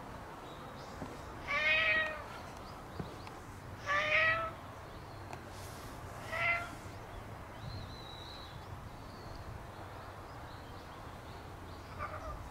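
Black cat meowing: three clear meows in the first seven seconds and a fainter one near the end.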